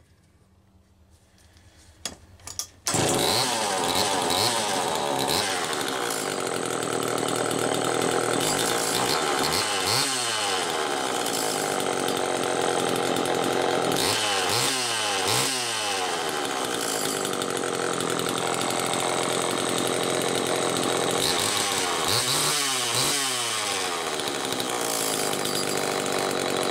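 Homelite XL-120AM two-stroke chainsaw engine catching about three seconds in and then running steadily, its revs dipping and picking up again a few times. The vintage saw is starting and running on its own fuel system straight out of the box.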